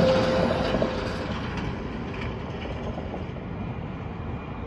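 Loaded car-carrier tractor-trailer driving past close by, its trailer and stacked cars rattling. The noise is loudest at first and fades over the first two seconds into a steady, lower rumble as the rig moves away.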